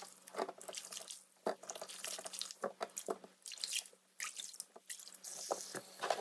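Hands splashing and swishing altari radishes through water in a stainless steel sink bowl, with irregular drips and splashes as bunches are lifted out into a colander. A faucet starts running near the end.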